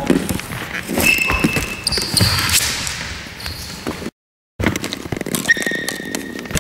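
Floorball drill in an echoing sports hall: repeated sharp knocks of sticks and the hollow plastic ball, with short high squeaks of shoes on the court floor. The sound drops out completely for half a second about four seconds in.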